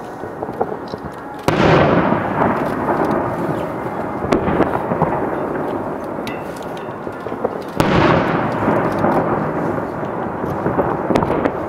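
Aerial fireworks shells bursting: two loud booms, about a second and a half in and again near eight seconds, each followed by a long rolling rumble with scattered crackles.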